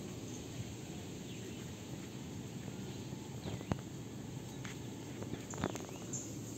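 Outdoor ambience: a steady low rumble with faint high insect and bird chirps, and a few sharp clicks, the loudest a little past halfway and a quick cluster near the end.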